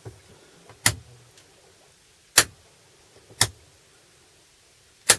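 Four sharp clicks of light switches, about a second or more apart, as LED lights are switched on.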